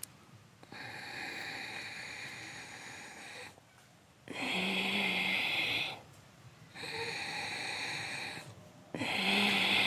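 Ujjayi breathing: a man breathing in and out with his throat narrowed, so the breath hisses in the throat rather than the nose. Two full breaths, each a longer, quieter draw followed by a shorter, louder one with a faint hum under the hiss.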